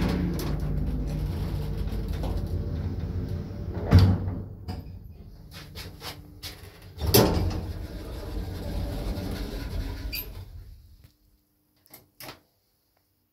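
Elszyk elevator with Zremb doors: the car runs with a steady low hum, then stops with a heavy thump about four seconds in. About three seconds later comes a second loud clunk from the doors, and near the end two short clicks as a floor button is pressed.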